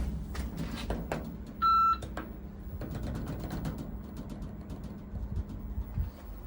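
A single short electronic beep of one steady pitch, the kind a lift gives, about one and a half seconds in. It sits over a steady low hum and scattered clicks and knocks.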